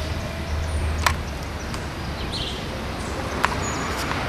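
Outdoor street ambience: a steady rushing noise with a low rumble, two sharp clicks about a second in and at about three and a half seconds, and a brief high chirp near the middle.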